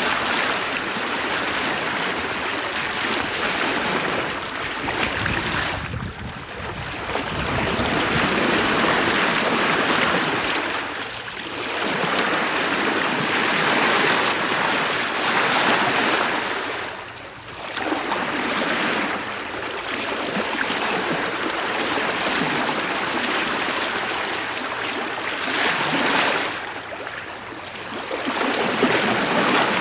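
Bow wave of the sail training schooner STS Malcolm Miller, heard from the bowsprit as the hull moves at about 4 knots in a 9-knot wind. The water washes steadily past the bow, easing briefly every several seconds before swelling again.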